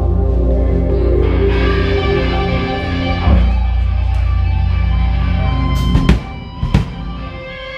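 Band rehearsing: electric guitar and bass ring out in a sustained drone with held notes above it. Two sharp drum hits come near the end, and the sound drops away after them.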